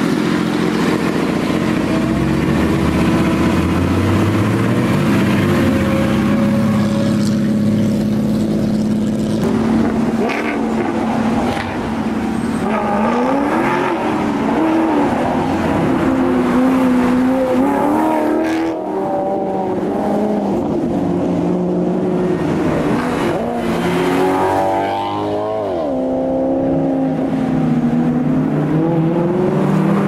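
Car engines as a line of cars drives past on a hill road, a vintage open racing car among them: a steady engine note at first, then from about twelve seconds in engines revving, their pitch rising and falling again and again.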